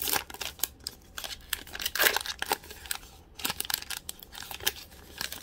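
Foil wrapper of an Upper Deck hockey card pack and plastic card sleeves crinkling and rustling in the hands: irregular crackles, busiest in the first two seconds, then sparser.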